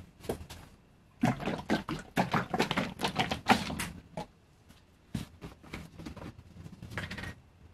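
Plastic bottle of Smooth-Cast 300 urethane resin being handled and poured: a run of irregular knocks and liquid glugs for a few seconds, then scattered lighter plastic clicks as the bottle is capped.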